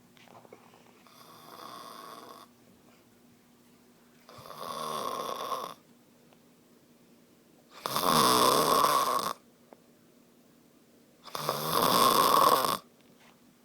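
A sleeping person snoring: four long snores about three seconds apart, each lasting about a second and a half. The first is faint and each grows louder, the last two loudest.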